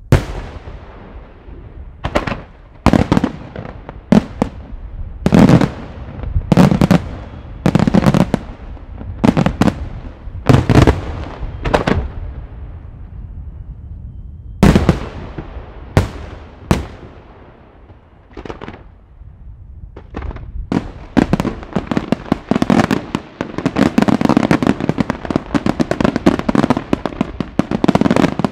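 Aerial firework shells bursting with sharp bangs, one every second or so, with a short lull about halfway. In the last several seconds the bursts come fast and overlapping into a dense barrage of bangs.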